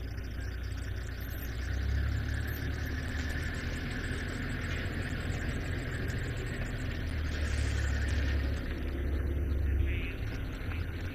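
A vehicle engine idling steadily with a low rumble.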